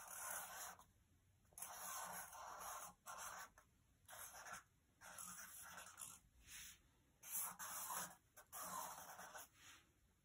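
Felt-tip markers scratching across sketchbook paper in an irregular run of short and longer strokes, faint.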